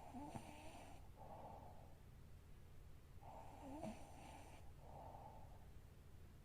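A woman snoring faintly in her sleep. There are two slow breaths, about three and a half seconds apart, each a snoring inhale with a brief click in the middle followed by a shorter, softer exhale.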